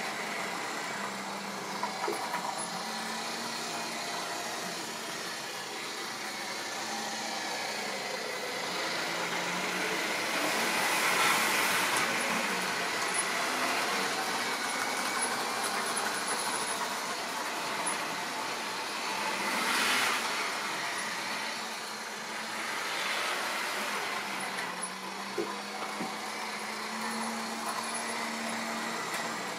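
Model railway trains running on the layout: a steady electric-motor hum with the rumble of wheels on track, swelling twice as trains pass close, about eleven seconds in and again about twenty seconds in, with a few small clicks.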